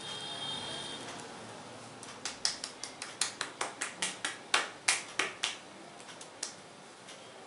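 Hair cracking in an Indian head massage: small locks of hair snapped between the fingers give a quick run of sharp cracks, about four a second, then two more spaced cracks.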